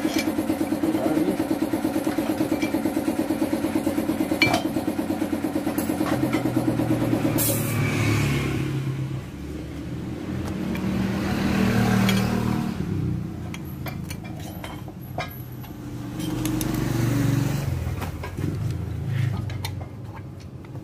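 An engine running, steady with a fast pulsing beat, then turning uneven and rising and falling from about eight seconds in.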